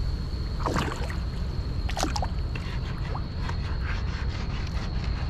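Water splashing and lapping around a swimmer at a sailboat's hull, with two louder splashes about one and two seconds in, over a steady low rumble.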